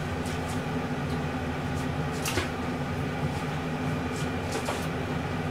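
Steady low hum of a motor or fan, with a few faint light clicks, the clearest a little over two seconds in.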